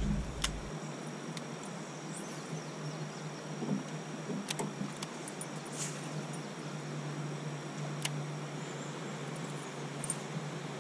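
Quiet outdoor ambience on the water: a faint steady low hum with a scattering of light, sharp clicks and ticks.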